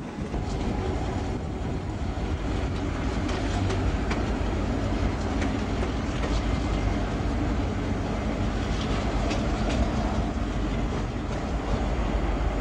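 Train running on jointed track: a steady low rumble, with wheels clicking over rail joints now and then.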